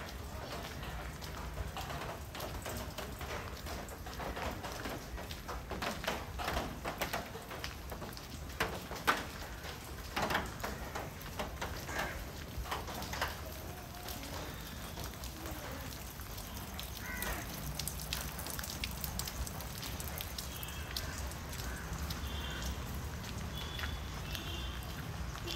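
Outdoor ambience on a walk: a steady low rumble under a run of irregular clicks and taps through the first half, with a few short high chirps near the end.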